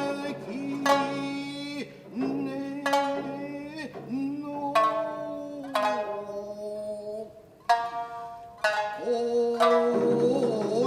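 Tokiwazu-bushi music: a shamisen plucked in sharp, ringing strokes every second or two, under a chanter's voice holding long, wavering notes.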